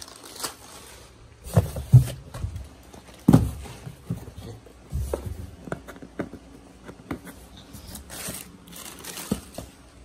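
Hands rummaging in a cardboard box of plastic-bagged parts: plastic crinkling, broken by several dull knocks and bumps against the cardboard, the loudest about two and three seconds in.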